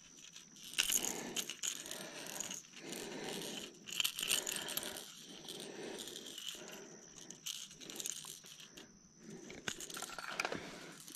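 Handling noise as a smallmouth bass is unhooked over a landing net: irregular rustling with many short clicks and ticks.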